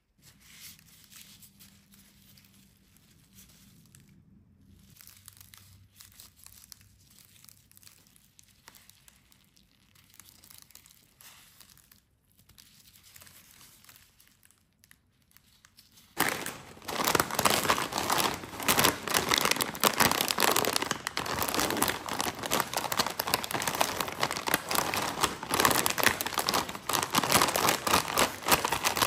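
Faint rustling as gloved hands squeeze sugar-coated sour candy straws, then about halfway through a loud, continuous crinkling of a plastic potato chip bag being squeezed and handled.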